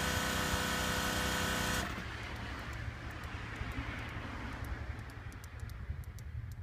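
Makita AC4000 air compressor running steadily, then cutting off abruptly about two seconds in. A hiss fades away over the next few seconds, under a low hum and a few light clicks.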